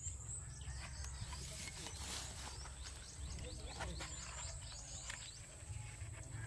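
Young green coconut being pried apart by hand: faint scattered cracks and crackles of the split husk and shell fibres tearing.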